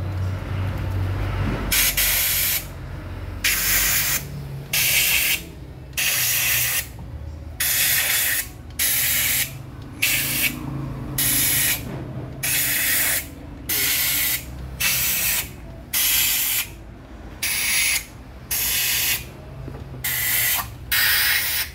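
Compressed air blown through a hose nozzle into the cylinder-head bolt holes of a 2L engine block, clearing out loosened dirt and rust from the threads. It comes as a long series of short hissing blasts, about one a second, as each hole is blown out in turn.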